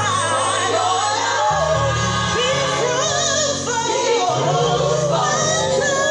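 Gospel music: voices singing in long gliding lines over sustained bass chords that change every second or so.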